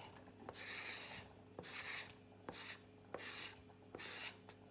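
A wooden spatula scraping diced onion and garlic off a chopping board into a frying pan: about four short scrapes, with light knocks between them.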